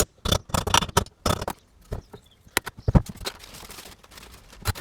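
Irregular sharp clicks and knocks of metal parts being worked as a gearbox bearing is fitted into the engine case: a quick cluster at first, then a few single knocks, the loudest about three seconds in.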